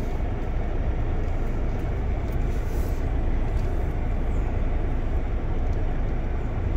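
Pickup camper driving slowly over a rough gravel track, heard from inside the cab: a steady low rumble of engine and tyres on loose stones.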